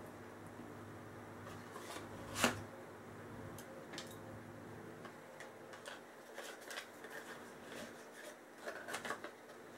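Small tabletop handling noises: a single sharp knock about two and a half seconds in, then scattered light clicks and rustles as a small cardboard leather-dye box is handled and opened, more of them near the end, over a faint steady hum.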